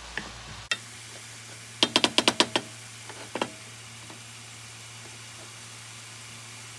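A quick run of about seven sharp knocks, then a single knock about a second later, over a faint steady hum.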